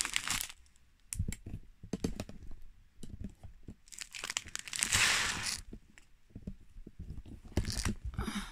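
Small plastic bags of diamond-painting drills crinkling as they are handled, in three bursts, the loudest about four to five seconds in, with light clicks and taps in between.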